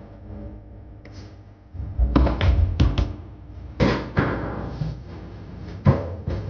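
Foosball being played on a Tornado table: the ball cracks off the players' figures and knocks against the table walls, with rods thudding. It comes as irregular sharp knocks, a quick cluster about two seconds in and the loudest single crack near the end.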